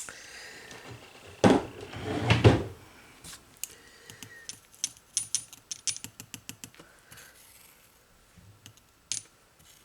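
Bottle and small dish handled on a tabletop while the acetone cleanup dish is refilled: two louder knocks and clatters about a second and a half and two and a half seconds in, then a run of quick light clicks and taps.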